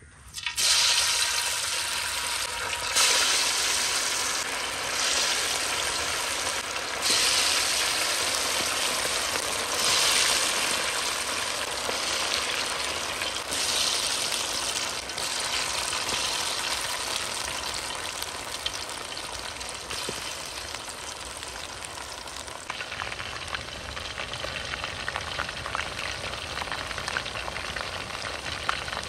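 Marinated chicken pieces frying in hot coconut oil, sizzling loudly. The sizzle surges several times in the first half as more pieces go into the oil, then settles into a steady fry.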